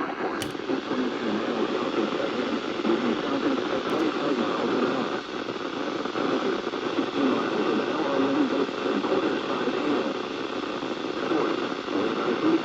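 Steady radio static and hiss from weak broadcast reception, with no clear words coming through.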